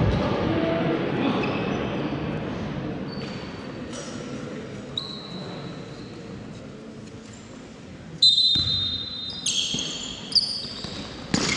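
Sounds of an indoor basketball game echoing in a large sports hall: players' voices and sneakers on the court. About eight seconds in there is a sudden loud, high-pitched squeal, followed by several short shoe squeaks.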